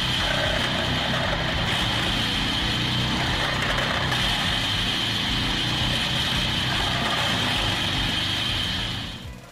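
Wood chipper running steadily: a constant engine rumble under a steady high whine, fading out near the end.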